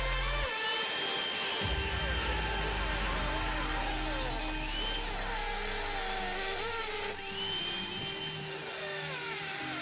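Electric power tool running under load, its whine wandering in pitch, over electronic background music with a steady bass.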